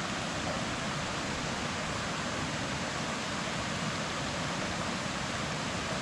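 Steady rushing of a small waterfall cascading over rocks into a pool.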